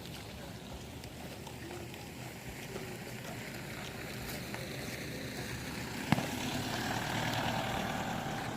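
Steady outdoor background noise that slowly grows louder, broken by one sharp pop about six seconds in.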